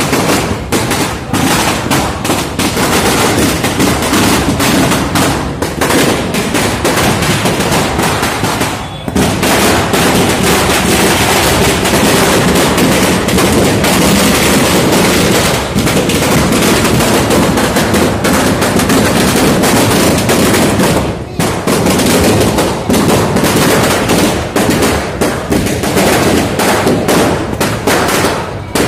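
A long string of firecrackers going off in a rapid, continuous run of bangs, with brief lulls about nine and twenty-one seconds in.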